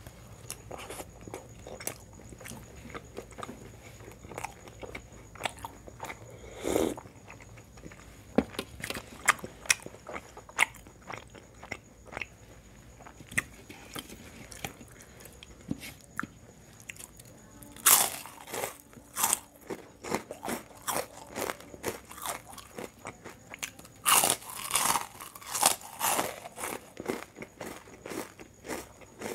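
Close-up eating sounds: a person chewing and biting, then crunching into crisp fried papad, with loud crackly crunches about two-thirds of the way in and again near the end.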